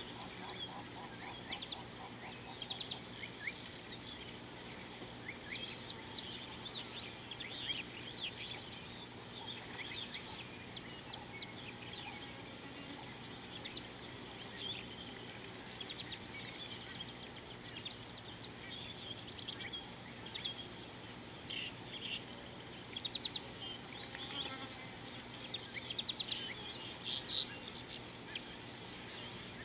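Wildlife chorus of many short, high chirps and quick trills, scattered irregularly, over a steady low hum.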